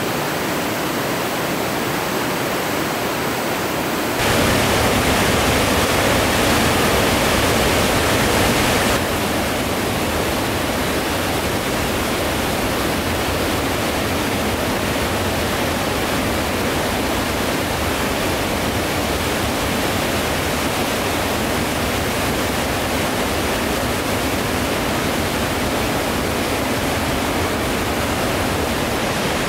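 Whitewater rapids of the South Fork American River in flood, a steady rushing noise of high water. It gets louder for a few seconds starting about four seconds in, then settles back to a steady rush.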